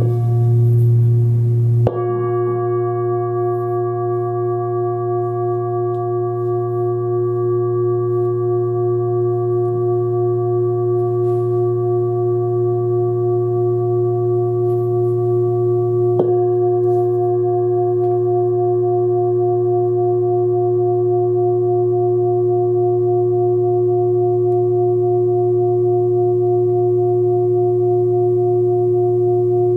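A 28 cm hand-forged singing bowl tuned to about 117 Hz (A) is struck with a mallet about two seconds in and again about sixteen seconds in. Between strikes it rings on with a deep hum and several higher overtones that waver slowly.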